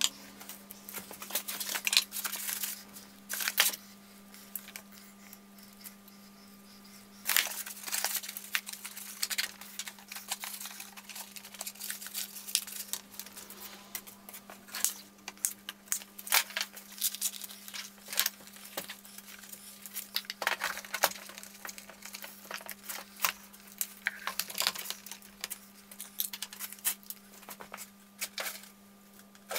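Hand-work handling noise at a workbench: irregular clicks, rustling and small clinks as parts and wiring are fitted and secured in a robot chassis, over a steady low hum.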